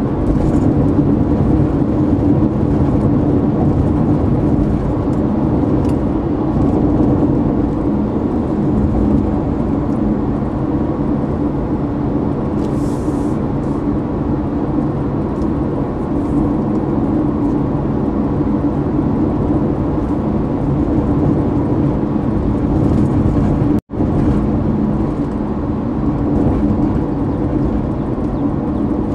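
Steady road and engine noise of a car cruising on asphalt, heard from inside the cabin: an even low rumble with a constant hum. Near the end the sound cuts out for an instant.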